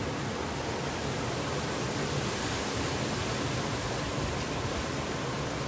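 A fast, shallow river rushing over rocks and a small weir: a steady, even wash of white water.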